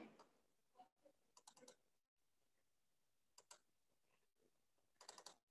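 Near silence broken by faint computer-mouse clicks. They come singly and in small clusters, about a second in, around a second and a half, near three and a half seconds, and again near the end.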